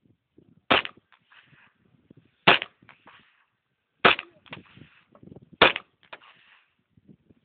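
Zigana K 9mm pistol fired four times, about one and a half seconds apart, each sharp shot followed a moment later by a fainter crack.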